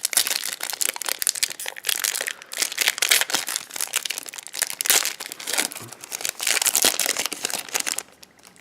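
Plastic wrapper of a Topps baseball card pack crinkling and crackling as it is opened and handled, with dense, rapid crackle that stops abruptly about eight seconds in.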